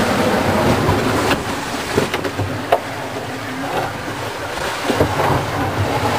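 Rushing sea water and wind around a sailing trimaran driving through heavy, breaking waves, with a few sharp knocks of the hull and rigging.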